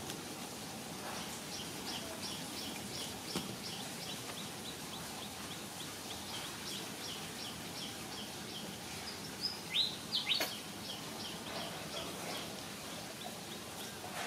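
A bird calling over a steady outdoor background: a regular run of short high chirps, about three a second, with a few louder sliding calls about ten seconds in.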